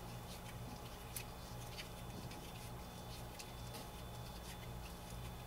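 Nylon trimmer line being wound by hand onto a Husqvarna 223L trimmer-head spool: faint scattered clicks and light rubbing, with a sharper click about a second in, over a low steady hum.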